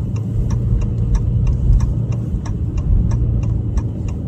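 Car's turn-signal indicator ticking steadily, about three ticks a second, over a loud low rumble of the engine and tyres inside the moving car.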